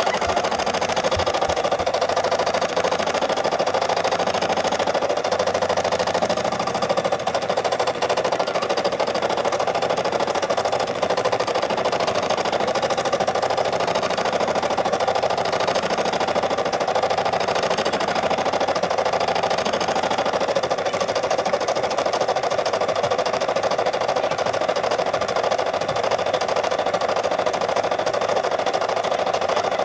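Brother SE600 embroidery machine stitching a fill: a steady, rapid needle chatter that runs without pause.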